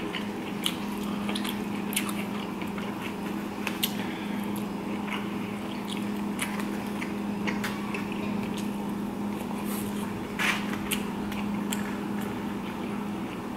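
Close-miked chewing and wet mouth sounds of a person eating fried rice and beef and broccoli, with many short sharp clicks. A steady low hum runs underneath.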